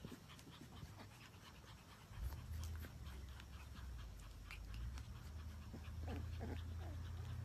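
Siberian husky panting softly, with scattered small clicks and a low rumble that sets in about two seconds in.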